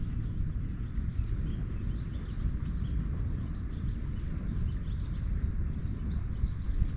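Wind buffeting the microphone in a steady low rumble, with scattered faint high chirps that sound like birds.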